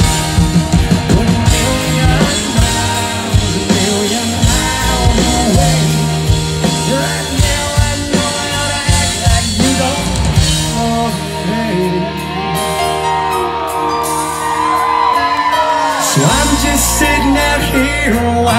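Live country rock band playing loudly with a male lead vocalist singing into a microphone over drums and guitars. The bass and low drums drop out a little past the middle and the full band comes back in near the end.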